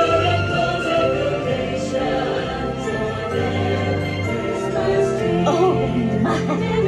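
Holiday parade music with a choir singing over orchestra, played from the passing float's loudspeakers.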